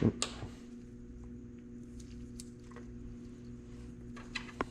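Small metal gearshift parts being handled and fitted together: a loud clack just as it starts, then two lighter clicks near the end, over a steady low hum.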